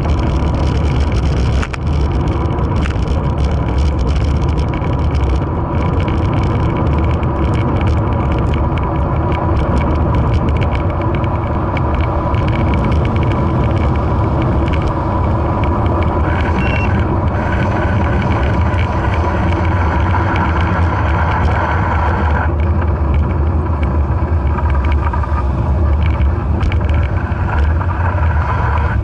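Steady wind and road rumble on a bicycle-mounted camera's microphone as the bicycle rides along a paved road, with frequent small knocks from bumps in the surface. Car traffic passes close by.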